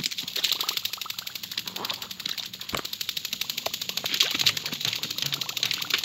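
Animated-film sound effects from an effects-only soundtrack, with no music or dialogue: a fast, even run of fine clicks, with scattered louder clicks and knocks.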